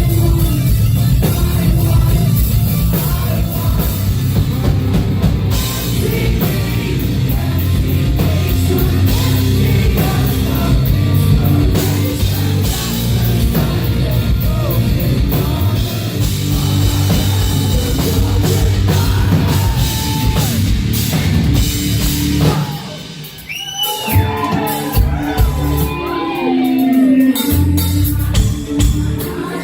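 A rock band plays live with heavy drums and singing. About 22 seconds in, the full band drops out and a sung vocal line carries on over thinner backing.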